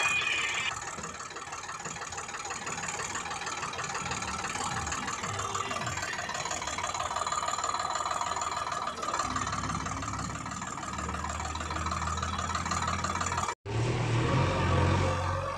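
Engine noise, a vehicle motor running steadily. It breaks off abruptly once near the end, and a deeper low hum comes in after the break.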